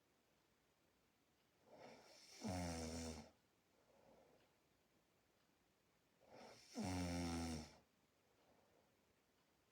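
A person snoring deeply: two loud, buzzing snores, about two and a half and seven seconds in, each lasting about a second, with soft breaths between them.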